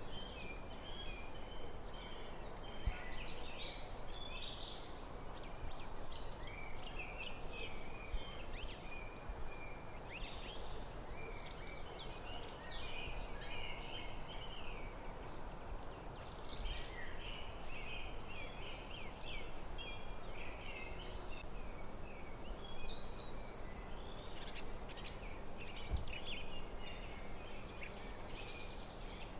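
Several birds chirping and trilling continuously in woodland, over a steady background hiss.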